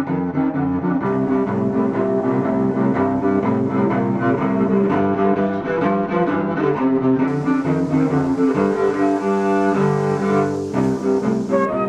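Bowed cello music with held notes, several pitches sounding together and moving in slow steps.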